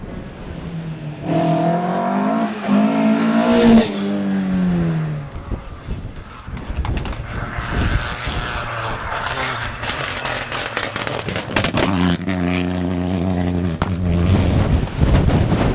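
Rally car engine revving hard as the car passes, its note climbing and then falling away about four to five seconds in, followed by a rush of noise, with the engine heard again from about twelve seconds in.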